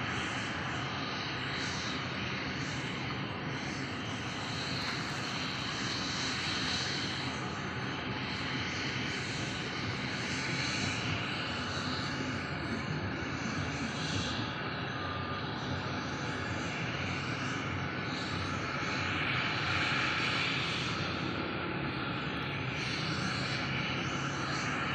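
Helicopter running steadily, its engine and rotor noise continuing without a break.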